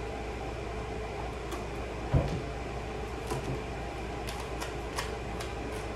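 Steady room hum with one dull thump about two seconds in, then a few light clicks, like things being handled and set down on a table.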